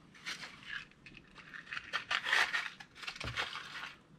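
Hand rummaging through a plastic case of screwdriver bits and small tools: scraping and small clicks in several bursts.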